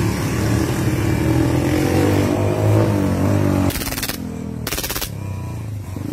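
Two short full-auto bursts from a gas blowback airsoft Glock 18C pistol, each about half a second of rapid shots, less than a second apart, over the steady running of a motor vehicle engine.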